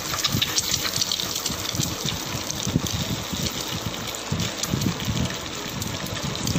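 Two eggs frying in a little oil in a stainless steel kadai on an induction stove: a steady noisy sizzle with irregular crackles and a low rumble underneath.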